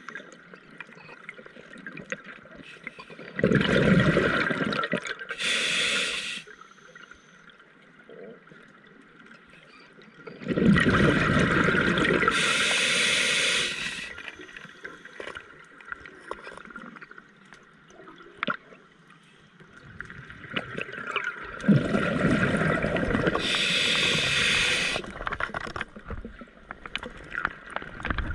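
Scuba diver breathing through a regulator underwater: three breaths about eight to ten seconds apart, each a rumble of exhaled bubbles followed by a short hiss, with faint crackling in between.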